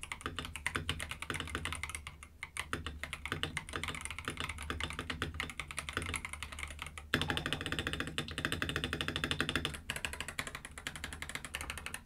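Epomaker TH80 SE gasket-mounted mechanical keyboard being typed on quickly: a dense, even run of keystroke clacks from its Flamingo linear switches under PBT keycaps. The typing gets louder, with a low hum under it, for about three seconds from roughly seven seconds in.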